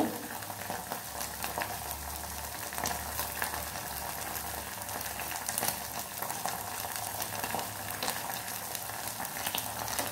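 Cut cabbage, carrot and paneer sizzling steadily in oil in a non-stick kadai, with small crackles now and then.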